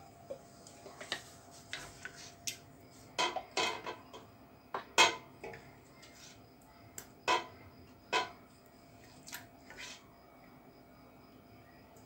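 Wooden spoon scraping and knocking against a stainless steel pot as thick jam is spooned into small glass jars. There are irregular knocks and clinks, the loudest about five seconds in.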